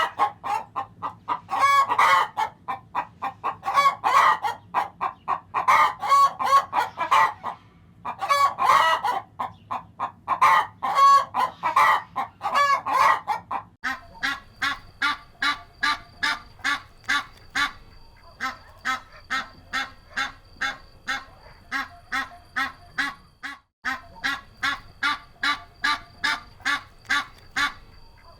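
Domestic fowl calling: loud calls in rapid clusters for the first half, then a steady run of short calls about two a second.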